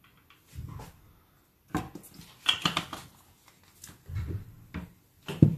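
Kitchen handling: scattered knocks and clatter of a seasoning shaker and a wooden spoon against a plastic bowl of raw chicken wings, with low thuds toward the end and the loudest thump near the end.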